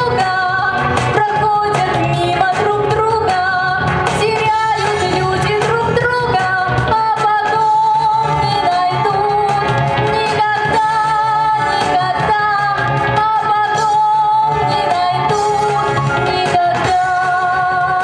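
A woman singing solo into a microphone over a recorded backing track, holding long notes with vibrato in the second half.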